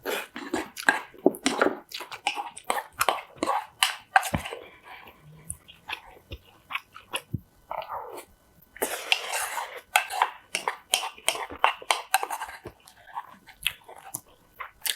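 Close-miked chewing of crunchy kimchi: irregular crisp crunches and wet mouth sounds in quick succession, thinning out for a couple of seconds in the middle before picking up again.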